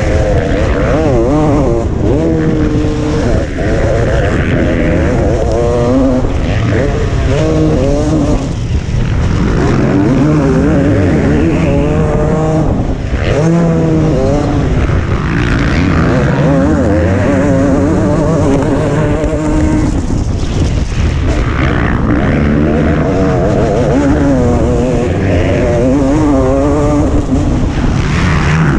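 Motocross bike's engine heard from the rider's helmet camera, revving up and down over and over as the bike is ridden hard around the track.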